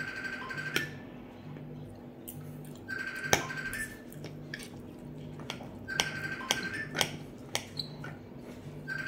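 Metal fork and knife clicking and scraping against a glass plate of rice and curry, a few sharp clinks standing out. Under it, quiet looping background music: a soft low beat with a high held note coming back every three seconds.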